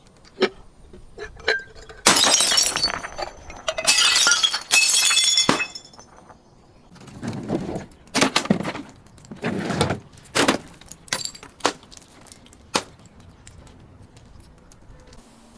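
Glass bottles breaking: a few sharp clicks, then two long shattering crashes full of high tinkling shards, followed by a run of duller crunching impacts and a few last sharp clinks.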